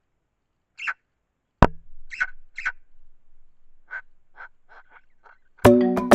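Eurasian magpie giving short harsh calls, with a single sharp knock about a second and a half in, then a run of softer notes. Near the end, loud music with struck, ringing notes begins.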